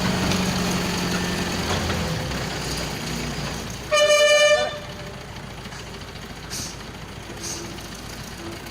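A heavy engine running with a low hum that fades over the first couple of seconds, then one loud horn blast lasting under a second, about four seconds in.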